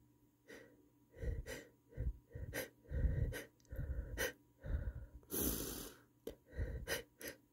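A person's repeated short gasping breaths as a sneeze builds, with one stifled sneeze about five seconds in, a longer hiss of air held back behind closed lips.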